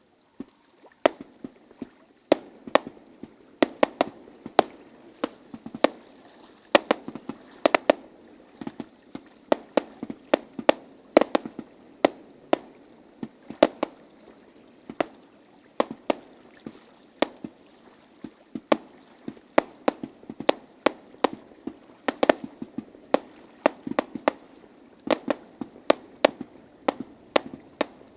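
Fireworks display: aerial shells bursting in a steady run of sharp bangs, about two a second.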